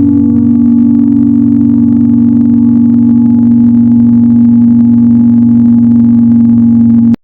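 Nuclear warning-system alarm sounding a loud, steady, low humming tone made of a few pitches held together, neither rising nor falling. It cuts off suddenly near the end.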